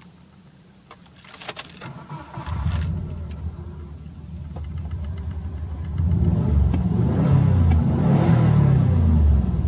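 Subaru Legacy B4 RSK's twin-turbo flat-four, fitted with a BLITZ aftermarket muffler, starting up: a few clicks, then the engine catches about two and a half seconds in and runs with a deep exhaust rumble that grows louder from about six seconds in.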